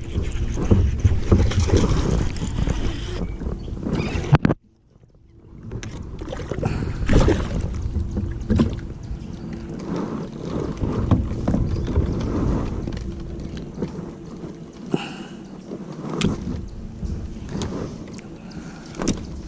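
Wind buffeting the microphone in a kayak, with scattered knocks of handling against the boat while a hooked bass is reeled in. The sound cuts out abruptly for about a second and a half, some four and a half seconds in.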